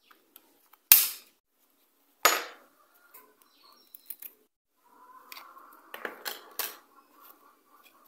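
Sharp plastic snaps and clicks from a keypad mobile phone being taken apart by hand: two loud snaps about a second and two seconds in, then softer ticks and handling noise as the display module comes out of the housing.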